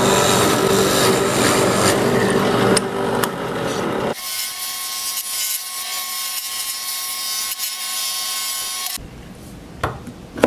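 A drill press boring a starter hole through a plywood square, a loud motor hum with cutting noise. About four seconds in it gives way to a scroll saw running and cutting the plywood along a marked circle, a steadier, quieter hum with a high whine, which stops about a second before the end.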